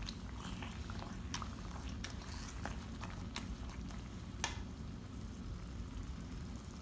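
Thick ground chana dal paste cooking in hot ghee in a pan, bubbling with scattered pops and sputters over a low steady hum; one pop about four and a half seconds in stands out.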